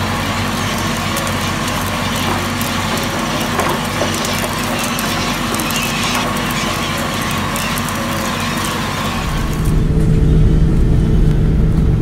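Tractor engine running steadily while pulling a plough. About nine seconds in, the sound changes abruptly to a louder, deeper engine drone with the high end dropping away.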